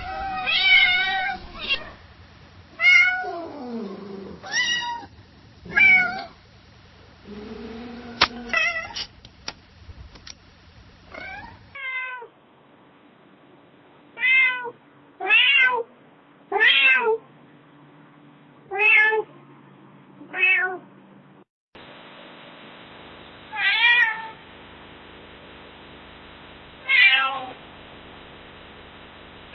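Domestic cat meowing repeatedly, about a dozen separate meows, each a short pitched call that swoops up and down. They come from several different recordings: a busier stretch of varied meows, one with a long falling glide, then a regular run of six short meows, then three more spaced a few seconds apart over a steady background hiss.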